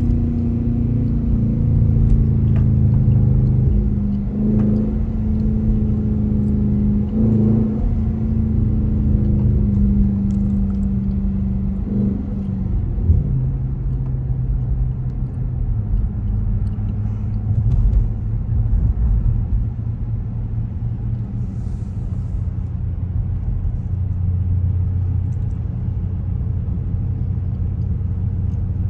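Dodge car's engine and exhaust running on the move with a low rumble; its steady engine note drops lower about thirteen seconds in and then holds.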